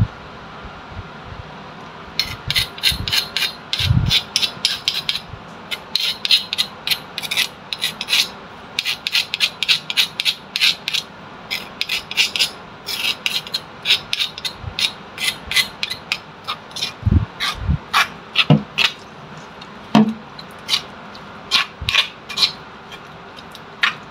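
Sambal being scraped and stirred in a rough stone cobek mortar, the stone pestle and a metal spoon rasping against the stone in quick repeated strokes, often about two a second. A few dull knocks come in among them, once near the start and several times after the middle.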